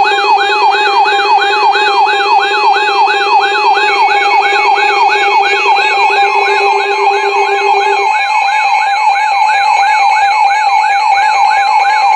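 Electronic siren alert in a fast yelp, its pitch sweeping up again and again about three times a second, sounding between weather radio warning broadcasts; a steady lower tone under it stops about two-thirds of the way through.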